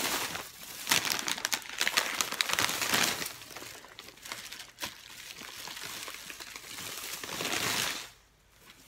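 Plastic shopping bag and snack bags crinkling and rustling in repeated bursts as food items are handled and packed into the bag. The crinkling stops shortly before the end.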